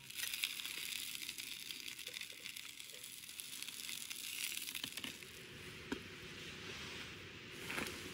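Sliced vegetables sizzling loudly in hot oil in a frying pan on a camp gas stove. The sizzle jumps up suddenly as the slices go in, then eases after about five seconds.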